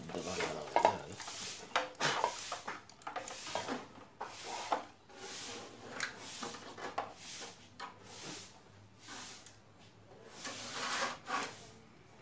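Handling noise: a CRT television's main circuit board and its wiring being lifted and shifted by hand, with irregular rubbing and scraping, about one or two a second.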